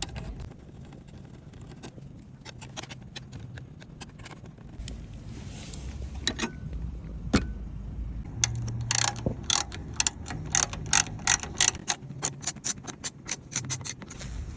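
Hand ratchet wrench clicking as a bolt is worked on. Scattered clicks come first, then from about eight seconds in a quick, even run of clicks, about three or four a second.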